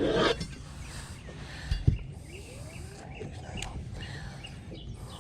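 Outdoor ambience with faint, repeated bird chirps and a single dull thump about two seconds in.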